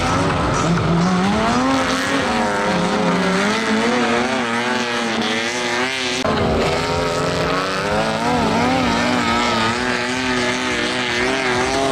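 Racing combine harvesters' engines revving hard, their pitch rising and falling and wavering continuously as the machines drive over the rough track.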